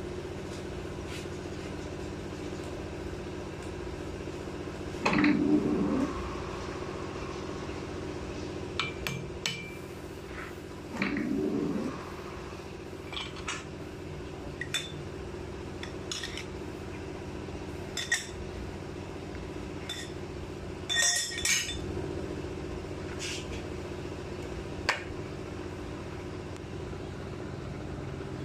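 Metal clinks and knocks from setting up a large four-jaw lathe chuck: the chuck key working the jaws and steel tapping on steel as the workpiece is clamped, over a steady machine hum. Two louder, longer rattles come about five and eleven seconds in, and a quick run of bright clinks a little past twenty seconds.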